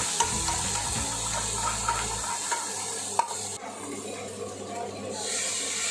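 Vegetables sizzling in hot oil in an iron kadhai while a spatula stirs and scrapes against the pan, with a sharp clink about three seconds in. The sizzle eases off for a moment and picks up again near the end.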